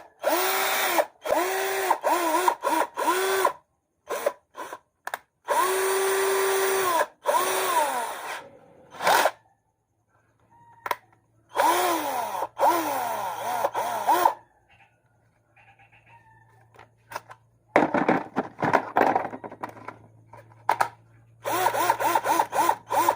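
A 12 V Makita cordless drill's motor is run in a series of short bursts. Each burst whines up to speed, holds briefly and winds down, with pauses between them, as the drill is tested on its batteries.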